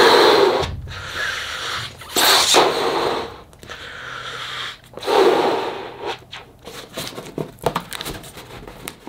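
A person blowing hard into a rubber balloon to inflate it, three long puffs with breaths drawn in between. Near the end come a few short squeaks and snaps of the stretched rubber as the neck is tied off.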